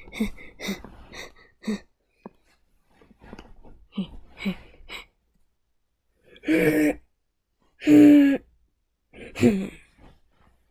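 A person's voice making wordless vocal sounds: soft murmuring noises, then three loud short vocal outbursts about a second and a half apart, the middle one the loudest.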